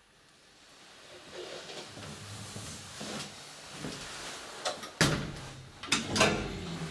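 Old Schlieren elevator's doors being shut: two loud clunks, about five seconds in and again a second later.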